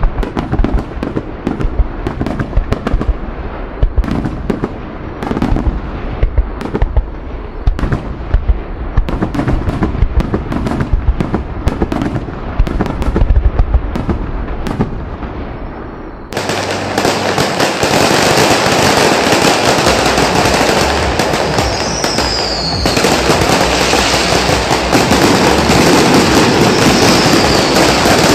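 A fireworks display going off: a rapid, irregular string of sharp bangs and pops, then a little past halfway the sound switches abruptly to a dense, continuous crackling hiss.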